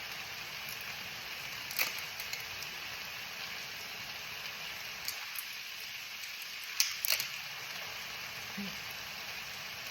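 Stir-fry vegetables sizzling in a pan, a steady hiss, with a few sharp clicks of utensils or containers about two seconds in, around five seconds, and a louder pair near seven seconds.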